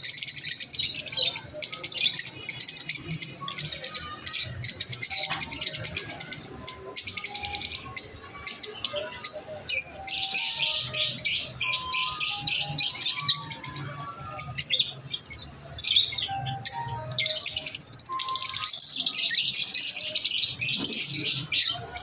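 Masked lovebirds chattering in rapid, high chirps, in bursts with brief pauses, over faint background music with a slow melody.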